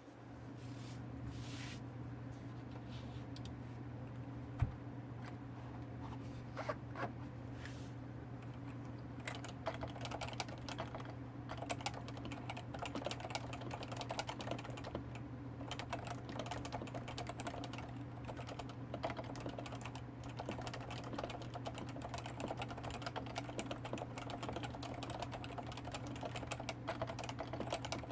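Typing on a Topre Realforce 104U with 45 g capacitive switches, unlubricated sliders and black ABS keycaps: a steady stream of soft keystrokes that grows faster and denser after about nine seconds. A steady low hum runs underneath.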